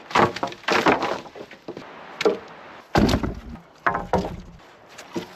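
Dry wooden poles knocking and clattering against each other as they are handled and laid down, with several sharp irregular wooden knocks and a couple of heavier thuds.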